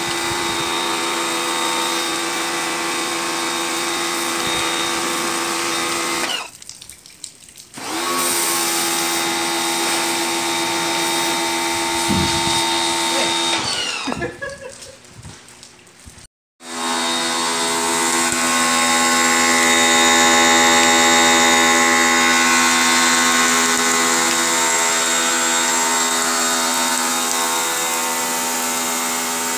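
Black & Decker PW1470TD electric pressure washer's motor and water pump running with a steady whine and the hiss of the spray. It cuts out twice, for a second or two each time, about six and fourteen seconds in, then starts up again.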